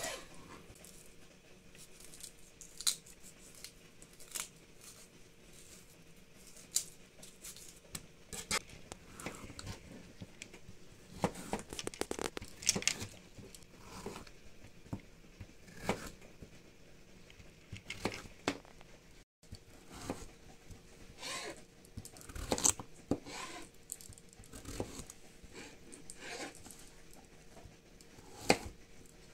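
Kitchen knife slicing through a peeled raw chayote and knocking on a plastic cutting board: irregular crisp cuts and sharp taps, some in quick clusters.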